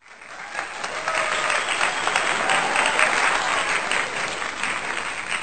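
Audience applauding: many hands clapping, swelling over the first second and tailing off near the end.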